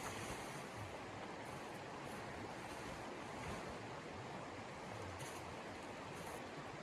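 Steady rushing wind of a snowstorm, an even hiss with no distinct events.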